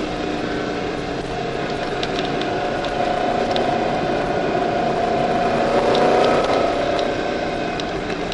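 C5 Corvette Z06's LS6 V8 running under load at track speed, heard from inside the cabin with road noise. The engine note swells to its loudest about six seconds in, then eases.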